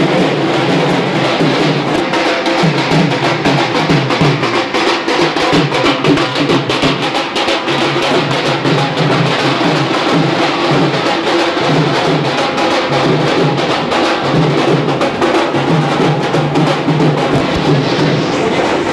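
Loud drum-led music with a steady beat.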